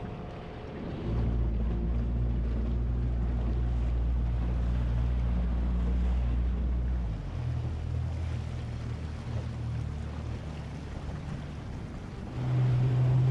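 Boat's outboard motor running under way with a steady low drone, over wind and water rushing past the hull. The drone's pitch shifts partway through, and it gets louder near the end.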